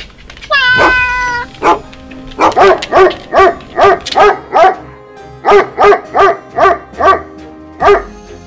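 Dog barking over background music: one longer call about half a second in, then two runs of quick, even barks, about three a second.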